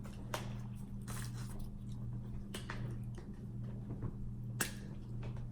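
Close-miked chewing of a crispy chicken sandwich, with wet mouth clicks and smacks every second or so. A steady low hum runs underneath.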